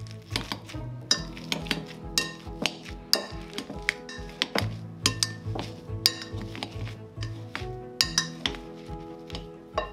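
A wire potato masher mashing boiled potatoes in a glass bowl, its metal head clinking and knocking against the glass a few times a second, over background music.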